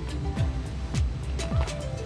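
Background music with a steady beat: a deep kick drum about twice a second under light hi-hats and short synth notes.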